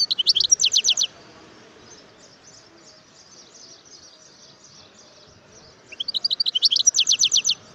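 European goldfinch singing: two loud runs of rapid, repeated high notes, one at the start and another about six seconds in, with faint twittering between them.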